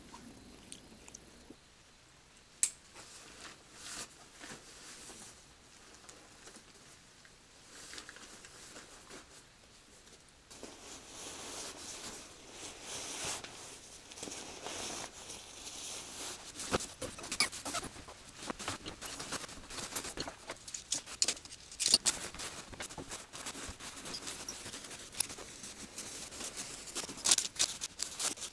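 Close rustling and clicking of camping gear being handled and packed away. The sounds are sparse for the first ten seconds, then come thicker, with a few sharp clicks.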